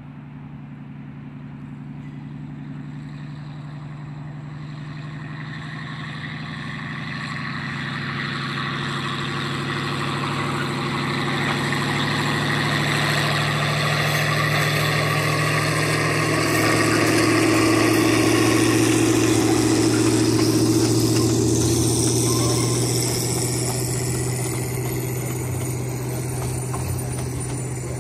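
A 1928 Plymouth narrow-gauge gasoline locomotive running under load as it approaches, passes close by and draws away. Its steady engine note grows louder, drops a little in pitch as it goes past, then fades.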